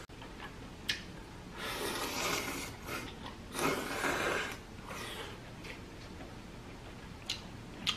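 A man slurping ramyeon noodles: two long noisy slurps, the first about a second and a half in and the second a little past three and a half seconds, with a few short clicks around them.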